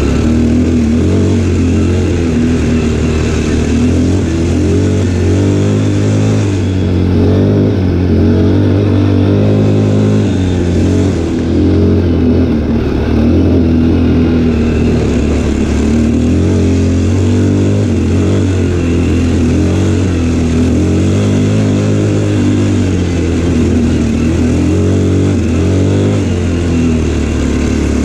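Quad bike (ATV) engine running while riding, its note rising and falling as the throttle opens and closes.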